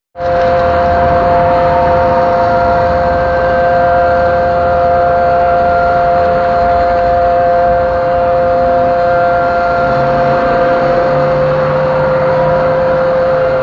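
A siren sounding a steady two-note chord, loud and held at one pitch without rising or falling, starting abruptly.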